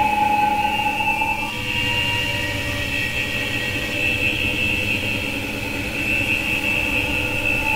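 Electronic sound-art drone: several sustained steady tones over a rough low rumble. One of the middle tones drops out about a second and a half in, while a higher tone keeps sounding.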